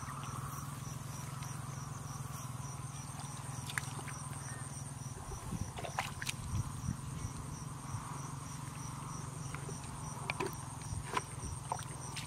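Insects chirping in steady, evenly spaced high pulses over a low steady hum, with a few wet squelches and small splashes from hands groping through shallow mud and water.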